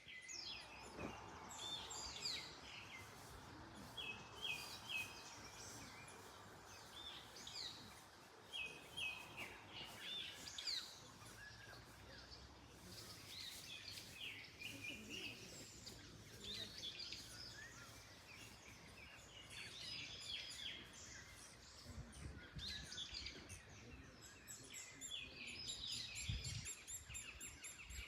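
Several wild birds chirping and singing, with short repeated phrases of three or four notes, over a soft background of wind in the trees. A few low gusts rumble near the end.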